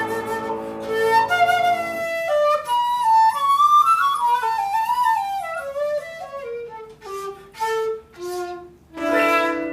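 Seven-hole 1.6-shaku shakuhachi and piano playing: a held chord with low piano notes ends about two seconds in, then the shakuhachi plays a slow, breathy phrase stepping downward, closing on a lower held note near the end.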